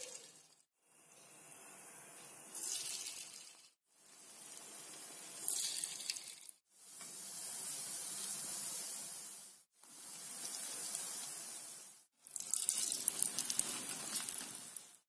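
Dal fritters deep-frying in hot groundnut oil: a steady sizzling hiss with crackle, heard in five short stretches separated by brief silences, the crackle louder in the last stretch.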